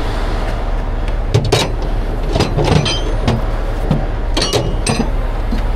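A truck engine idling steadily, with a series of sharp metallic clanks and knocks as gear is handled at a truck's side compartment.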